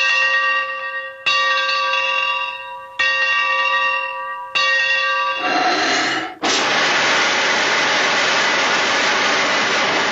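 A bell struck three times at even intervals, each stroke ringing out and fading, after which a loud steady hiss like escaping steam builds up about five and a half seconds in and runs on.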